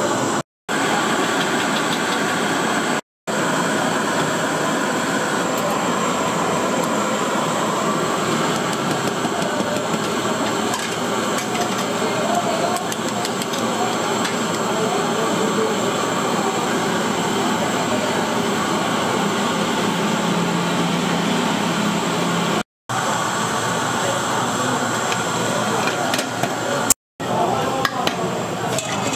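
Steady restaurant background noise with faint voices mixed in, dropping out abruptly to silence a few times.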